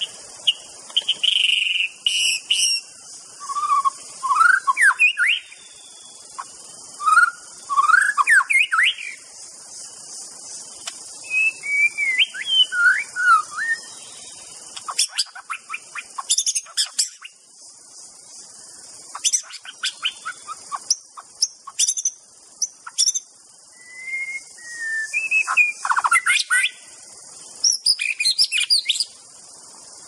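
White-rumped shama singing: about eight short phrases of varied whistles and quick sliding notes, separated by brief pauses, over a steady high hiss.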